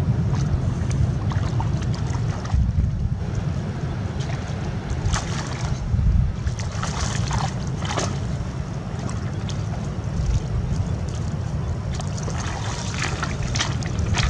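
Wind rumbling on the microphone, with splashing water as a cast net is pulled in with fish thrashing in it, and clatters of footsteps through shallow water and over stones near the end.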